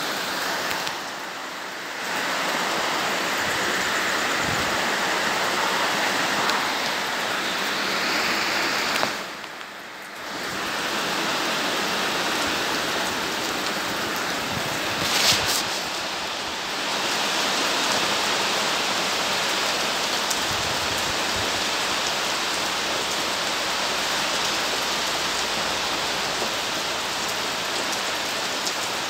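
Steady rain falling, an even hiss of many drops. It dips briefly about a second in and again around ten seconds in, with one short louder splash near fifteen seconds.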